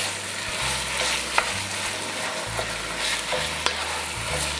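Ground pork sizzling as it sautés over the flame, stirred and broken up with a wooden spoon in an enameled cast-iron pot. The spoon knocks sharply against the pot a couple of times.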